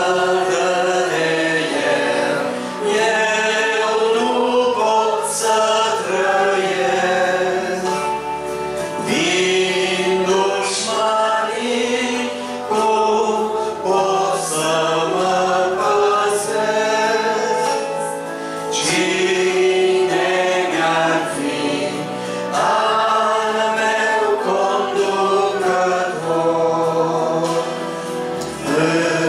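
A congregation singing a hymn in Romanian, a man's voice singing into a microphone among them, line by line with short breaths between phrases.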